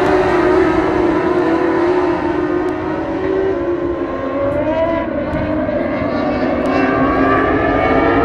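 Dwarf race cars' motorcycle-based engines running at speed around an oval, several pitches at once rising and falling as the cars pass and accelerate.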